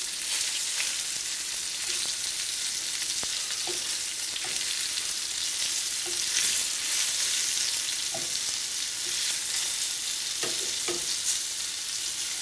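Egg-and-flour-coated chicken pieces sizzling steadily in hot oil in a frying pan, with a few short taps of metal tongs against the pan as the pieces are turned.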